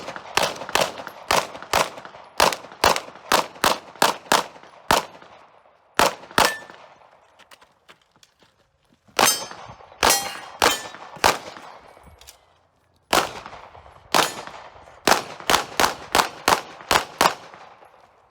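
Strings of pistol shots, about two a second, broken by pauses of one to two seconds, some of them followed by a metallic ring.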